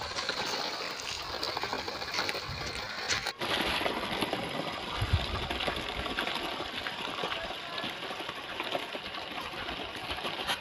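Small electric motor of a cardboard toy tractor running as it drives over dirt, heard as a noisy hum with small ticks from the wheels on grit. The sound changes abruptly about three seconds in.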